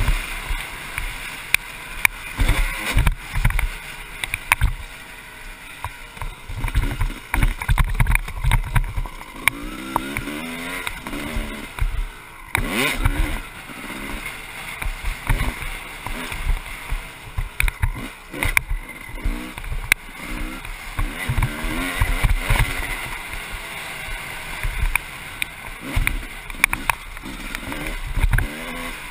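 1996 Honda CR250's single-cylinder two-stroke engine revving up and down as the bike is ridden hard, with wind buffeting the microphone and repeated knocks from the bike crossing rough ground.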